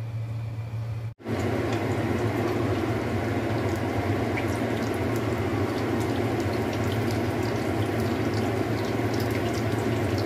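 Stuffed bitter melon rounds frying in shallow oil in a wok: a steady sizzle with many small pops and crackles, starting suddenly about a second in.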